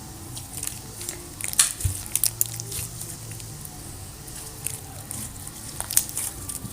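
Slime being squished and kneaded in the hands, with irregular small wet clicks and pops.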